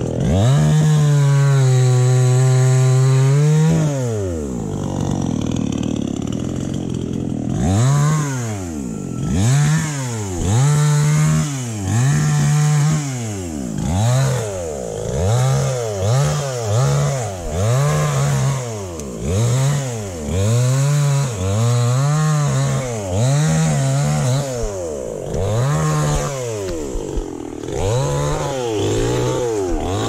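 Two-stroke chainsaw held at high revs for about three seconds, then dropping back. From about eight seconds in it is revved up and back down roughly once a second, again and again.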